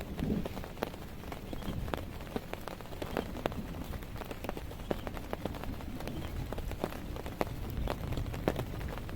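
Heavy rain, with big drops striking a surface close by in irregular sharp ticks, several a second, over a steady low wash of rainfall.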